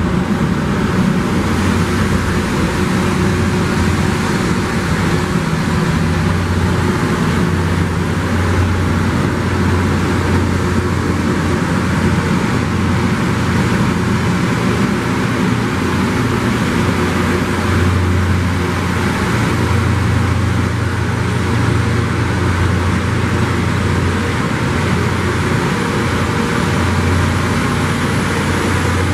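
Loram rail grinder train passing close by, its power cars and grinding machinery running with a loud, steady mechanical noise over a constant low hum.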